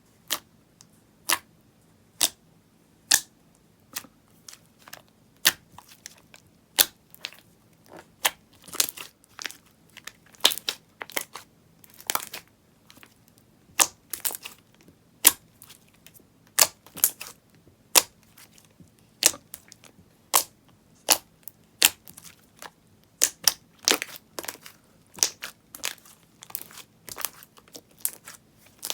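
Fluffy slime being pressed and poked by hand, giving sharp pops and crackles. They come about once a second at first, then several a second.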